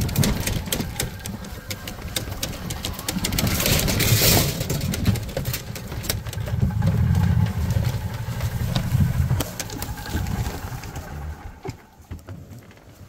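A small vehicle's engine running as it travels over rough ground, with frequent rattles and knocks; it grows quieter about three-quarters of the way through.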